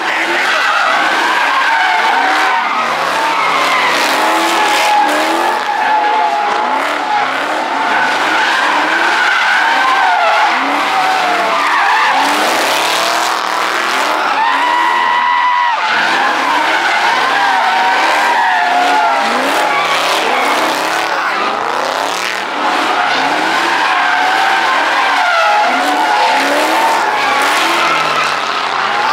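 A car drifting: tyres squealing in a long wavering tone over an engine revving up and down.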